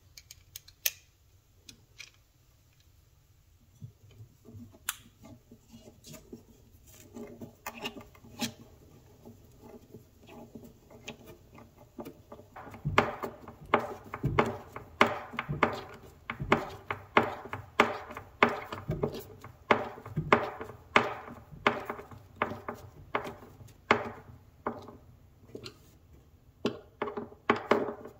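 A series of sharp knocks on wood, sparse at first, then a steady run of about two a second from about halfway in, each with a short hollow ring.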